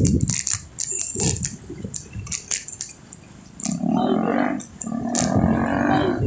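Street traffic heard from a moving bicycle: a run of sharp clicks and rattles through the first half, then twice a low pitched drone in the second half, like a nearby vehicle engine.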